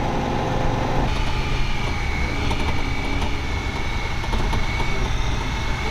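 Honda Pioneer side-by-side UTV running as it drives, heard from on board: a steady engine and drivetrain rumble, with a thin steady high whine through the middle of the clip.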